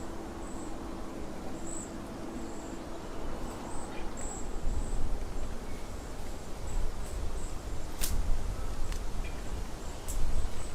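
Crickets chirping in short, high pulses over a low rumble, with a steady low hum for the first few seconds and two sharp clicks near the end.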